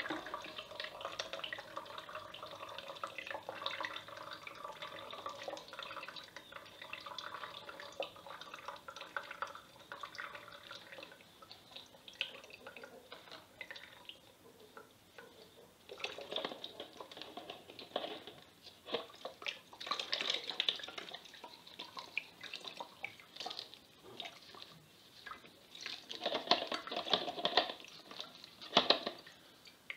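Sato rice wine draining from fermented glutinous rice mash through a mesh bag, a steady wet trickle and dripping. From about halfway on come louder, irregular splashes and wet squelches as the liquid is worked out of the mash.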